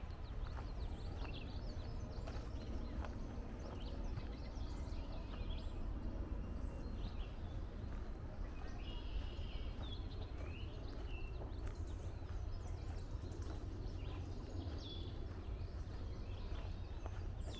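Footsteps on a woodland trail with songbirds chirping and calling in short, scattered phrases, over a steady low rumble.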